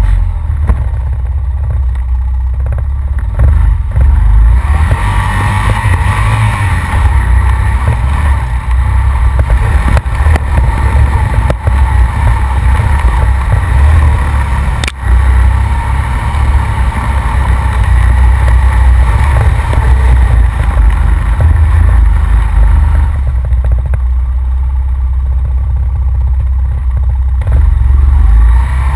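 Honda Rancher ATV's single-cylinder four-stroke engine running under load through mud and water, rising and falling with the throttle. There is a single sharp click about halfway through.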